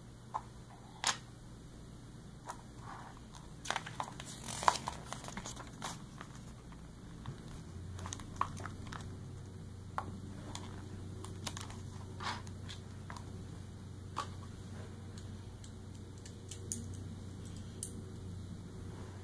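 Small plastic Lego bricks clicking and clattering as they are handled and pressed together, in scattered sharp ticks that bunch up a few seconds in, with a light rustle of a paper instruction booklet. A low steady hum comes in about eight seconds in.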